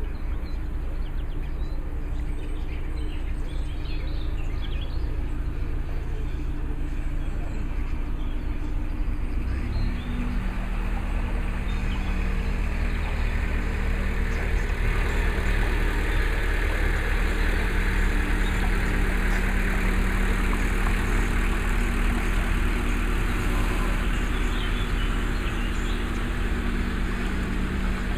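A canal narrowboat's diesel engine running steadily, getting louder from about ten seconds in as the boat approaches.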